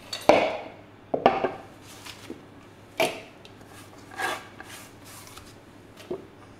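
Sweet potato peelings swept and scraped by hand off a wooden cutting board, in about five short separate sweeps.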